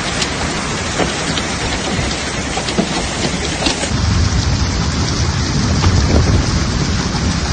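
Heavy rain pouring down: a steady hiss dotted with sharp drop splashes, with a low rumble that swells in the second half.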